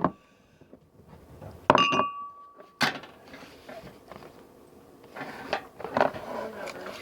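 Scattered clinks and knocks of kitchen containers and utensils being handled while ingredients are mixed into a cup. A brief steady high tone sounds about two seconds in.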